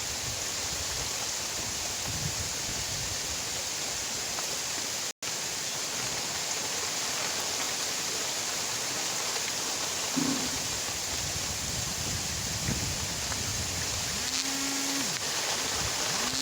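Steady rain hiss, broken by a split-second gap about five seconds in. Near the end come a few short, low, steady-pitched calls, like livestock lowing.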